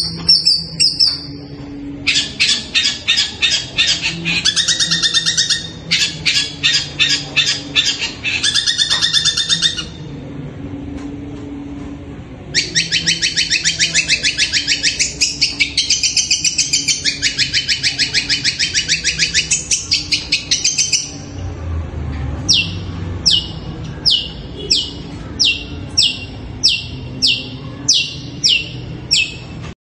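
Caged long-tailed shrike (cendet) singing. It gives two long runs of fast, high chattering trills, then a string of short, high notes, each falling in pitch, about two a second.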